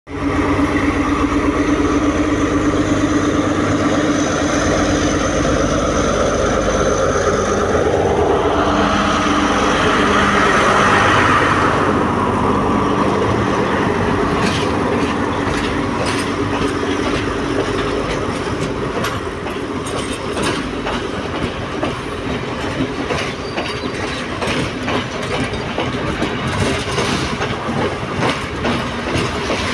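Sri Lanka Railways Class S10 diesel multiple unit running close by. A steady engine drone comes first, then the coaches roll past with wheels clacking over the rail joints in a regular beat.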